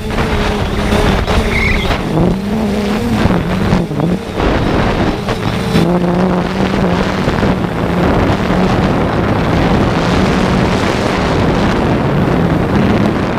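3DR Solo quadcopter's electric motors and propellers buzzing steadily in flight, the pitch wavering up and down as the motors work against strong gusts, with wind rushing over the microphone.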